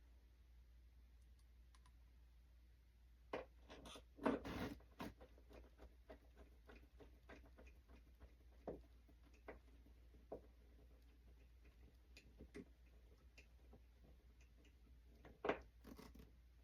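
Faint, scattered clicks and light knocks of small parts and tools being handled during hand assembly of a foam model plane, with a cluster of louder knocks about four seconds in and another near the end.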